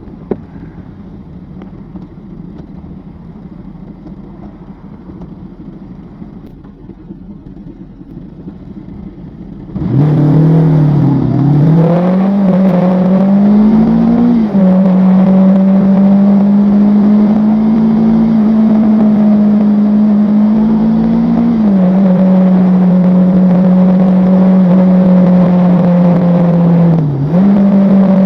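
Riding in a motor vehicle: a low rumble for about ten seconds, then a loud, steady drive note sets in suddenly. The note rises in pitch as the vehicle accelerates and drops back in steps twice, with a brief dip near the end.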